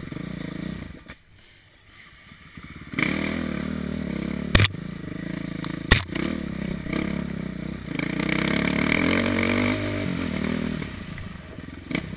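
Dirt bike engine on a rocky trail. About a second in it drops almost to quiet, then pulls hard again, with two sharp knocks around the middle. It runs loudest for a couple of seconds near the end, then eases off.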